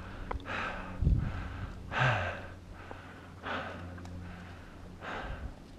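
A hiker breathing hard from the exertion of a steep climb, close to a head-mounted microphone: one noisy breath about every second and a half. There is a low thump about a second in.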